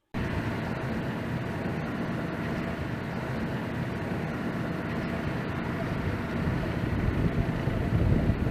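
Steady low rumble of a running vehicle engine, growing a little louder near the end.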